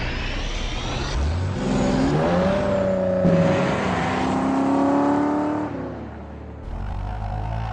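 Car engine sound effect revving up, its pitch climbing sharply about a second in and then holding, before dying away near six seconds, with a lower engine rumble starting up near the end.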